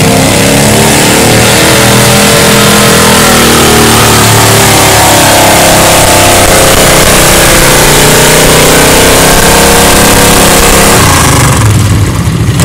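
Superstock-class garden pulling tractor's engine running flat out and very loud while it drags a weight-transfer sled down the track, its pitch rising and then sagging under the load. About eleven seconds in the engine is throttled back and drops to a lower, quieter run as the pull ends.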